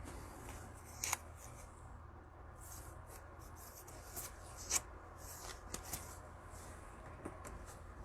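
Faint rustling and soft clicks of football trading cards being handled and slid against one another, with a sharper click about a second in and another near five seconds.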